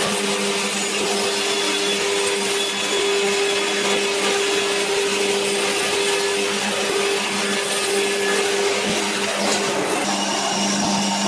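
Commercial bone band saw running steadily while cutting pork leg: a constant motor hum with the blade's hiss over it.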